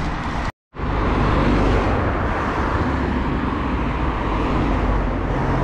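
Road traffic: cars driving past on a suburban road, a steady rush of tyres and engines. The sound cuts out completely for a moment about half a second in.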